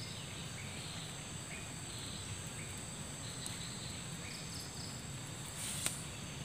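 Steady high-pitched insect drone, like crickets, with faint short chirps scattered through it and a single sharp click about six seconds in.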